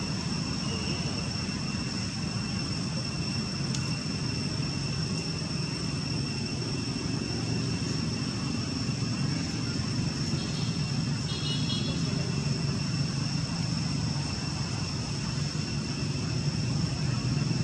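Steady low rumble of distant motor noise, with two steady high whining tones above it and a brief high chirp about ten and a half seconds in.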